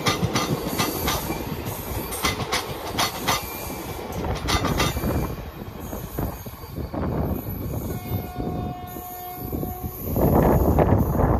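Express passenger train's wheels running over rail joints with a rhythmic clickety-clack. The clacks thin out midway, and the train rumble and clacking grow loud again near the end.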